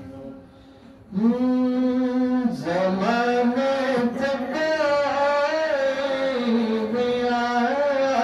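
A man's unaccompanied voice reciting a naat: Urdu devotional singing with long held notes and winding melodic ornaments. It comes in about a second in, after a brief pause.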